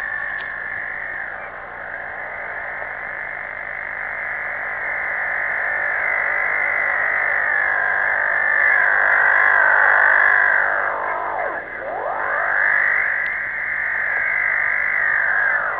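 Strange warbling noise from an HF CB radio receiver tuned to about 27.57–27.59 MHz: many wavering tones drift up and down together over radio hiss. About eleven seconds in they dive sharply in pitch and climb back up. The cause is unknown, and the uploader wonders whether it is atmospheric.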